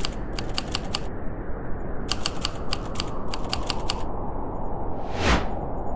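Typewriter sound effect: two runs of rapid key strikes, about six or seven a second, as title text is typed out. A short whoosh comes about five seconds in, over a steady low rumbling noise.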